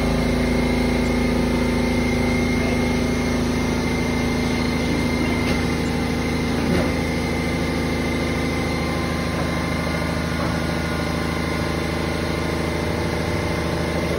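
A motor or engine running steadily: a constant hum with a steady high whine on top.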